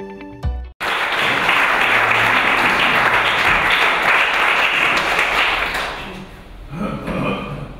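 Audience applauding, starting abruptly about a second in and fading out around six seconds in.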